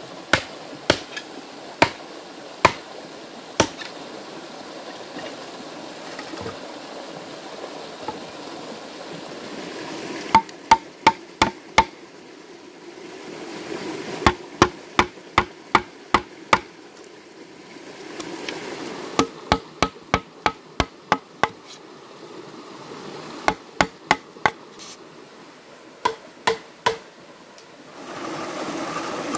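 A heavy chopping knife striking green bamboo poles: sharp cracking blows in quick bursts of four to six, a few a second, with pauses of a few seconds between bursts. Some blows ring briefly.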